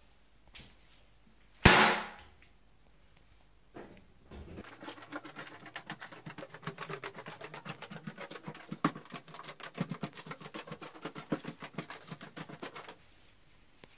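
A single loud sharp bang, then about eight seconds of rapid, uneven clicking and knocking, several strikes a second, that stops abruptly.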